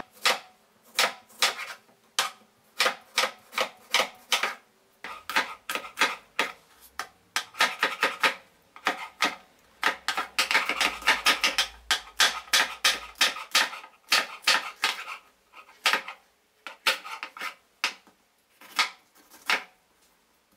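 Chef's knife finely chopping tomato and then green chile on a cutting board: quick, uneven runs of sharp knife strikes on the board, several a second, with short pauses between runs.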